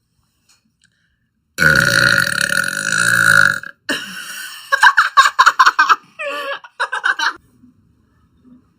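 A woman lets out a long, loud burp lasting about two seconds. It is followed by a quieter stretch and a quick run of short, choppy vocal pulses.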